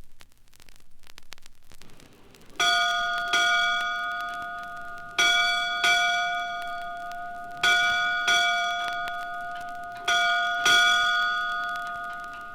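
A single high-pitched bell struck eight times in four pairs of two, each pair about two and a half seconds apart, every strike ringing on and fading. Faint record-surface crackle comes before the first strike.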